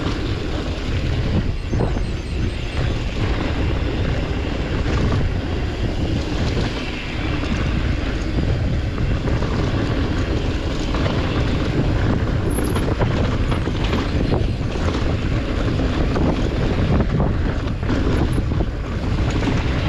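Mountain bike ridden over rock: heavy wind noise on the microphone with frequent knocks and rattles.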